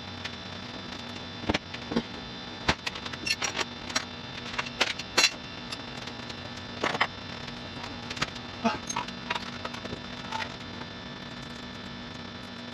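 Hand tools clinking and knocking against each other and the car's floor as they are picked up and gathered: a string of irregular sharp clicks and clanks, a few with a short metallic ring, over a steady electrical hum.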